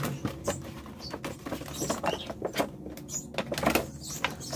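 Thin plastic panels of a DIY shoe rack being handled and folded: crinkling rustles with many sharp clicks and snaps.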